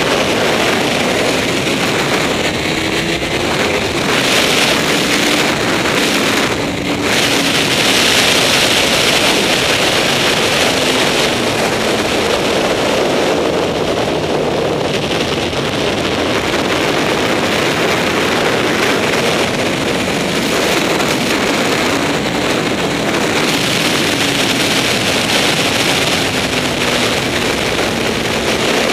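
Honda CBR954RR's inline-four engine at track speed, its pitch rising and falling through the corners, largely buried under loud wind rush on the camera microphone.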